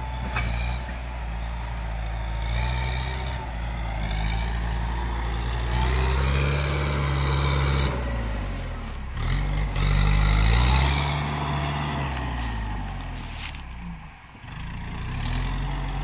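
Small farm tractor's engine running as it works a dry field, its pitch rising and falling several times as it revs up and eases off, with a brief dip in revs near the end.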